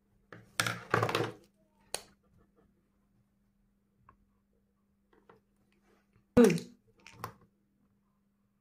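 Whiteboard markers being handled and swapped: short knocks and rustles near the start, a sharp click about two seconds in, and a louder click about six and a half seconds in with a smaller one after it, the snaps and taps of marker pens and their caps. A faint steady hum runs underneath.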